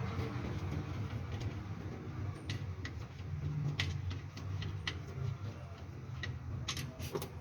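Light, irregular metallic clicks and taps of hand tools at the oil pan as the drain plug (bung) is loosened, with a cluster of clicks near the end, over a steady low hum.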